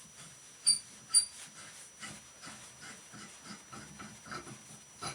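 Two sharp metallic clinks with a brief ring, about half a second apart, as parts of an old shower faucet valve are worked loose by hand. They are followed by a run of soft, quick, regular scraping pulses, about three a second, as the part is unscrewed.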